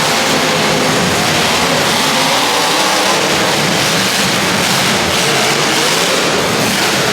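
Demolition derby cars' engines running and revving, a loud, steady din.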